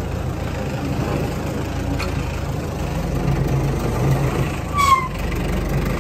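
Tractor diesel engine idling steadily, with a short high squeak about five seconds in.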